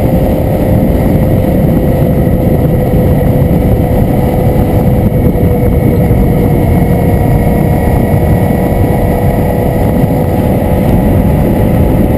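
Wind buffeting the microphone of a motorcycle-mounted action camera while a Suzuki V-Strom cruises at a steady speed. Its engine makes a steady drone under the rushing wind noise.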